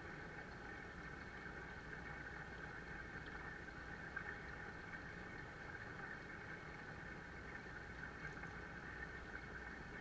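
Small waterfall pouring steadily into an indoor koi pond, a faint, even splashing of flowing water.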